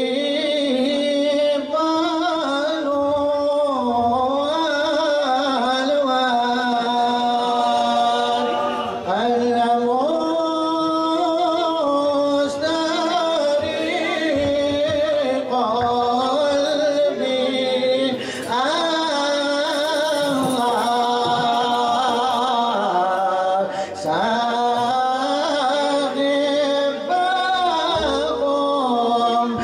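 Group of men chanting a Sufi devotional song together, with long held notes that slide gently in pitch.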